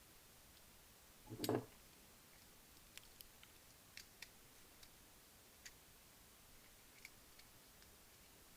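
Keys and a metal key holder being handled: a brief rattle about a second and a half in, then a few scattered light clicks.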